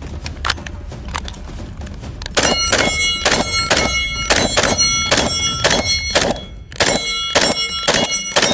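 Springfield Hellion 5.56 bullpup rifle firing a string of about sixteen shots at a steady pace of two to three a second, starting about two seconds in, with one short pause near the end. Steel targets ring on between the shots.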